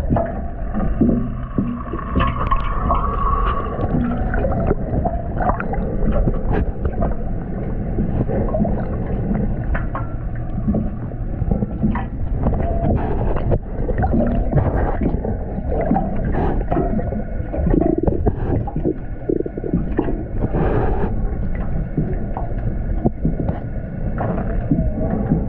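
Muffled underwater noise through a GoPro's waterproof housing: gurgling water with scattered clicks and knocks.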